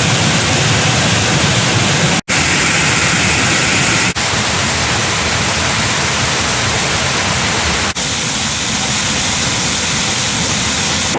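Loud, steady rushing noise with brief dropouts about two, four and eight seconds in, where the footage is cut.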